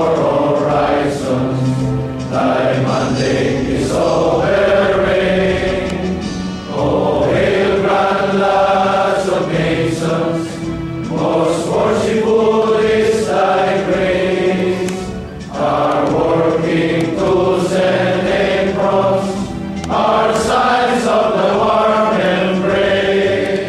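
A standing group of lodge members, mostly men, singing a march together as a choir. The sung phrases are separated by short breaths between lines.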